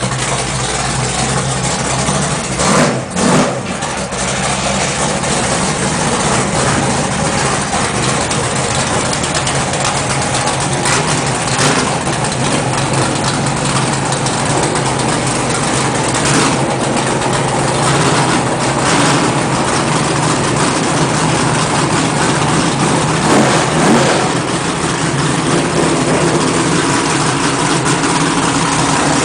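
Off-road racing vehicles' engines running and revving, heard in a loud, dense, steady mix with a few brief sharp spikes.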